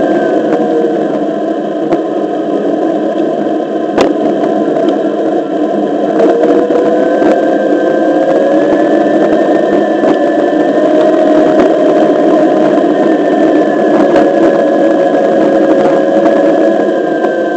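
Onewheel XR's electric hub motor whining, its pitch slowly rising and falling with speed, over steady tyre rumble on asphalt. A single sharp knock about four seconds in.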